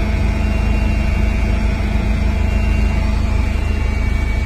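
Steady engine noise inside the cabin of a small aircraft in flight, heavy and low with a few faint steady tones on top.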